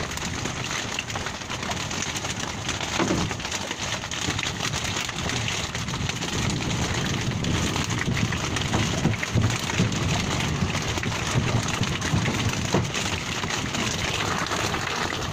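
Seawater splashing and dripping around a bamboo fish trap hauled up at a boat's side, a steady crackling patter with a few low thumps.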